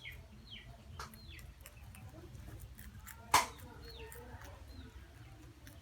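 Short, high, falling bird chirps every second or so, with one sharp click about three and a half seconds in, over a steady low rumble.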